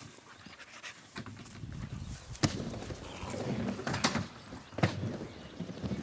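Dogs panting, with a few sharp knocks about two and a half, four and five seconds in.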